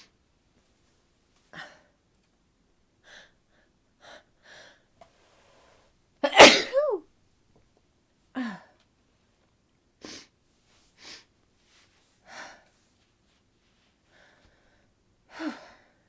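A woman sneezing repeatedly. The loudest sneeze, about six seconds in, ends in a high-pitched tail that slides down in pitch, and two more sneezes with short falling-pitch endings follow, the last near the end. Short breathy bursts come between them.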